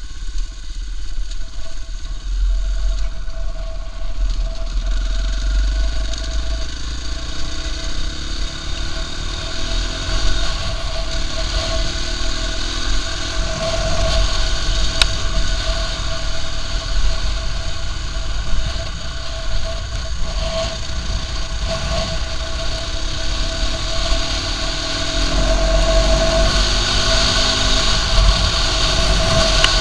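KTM EXC-F 450's single-cylinder four-stroke engine running under way, its pitch climbing as the bike accelerates, twice. A deep rumble sits under it throughout.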